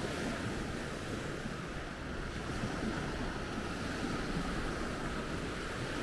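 Sea waves breaking and washing up the shore as a steady rush, with wind rumbling on the microphone.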